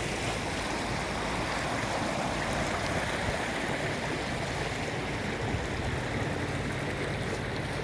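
Steady rush of flowing floodwater.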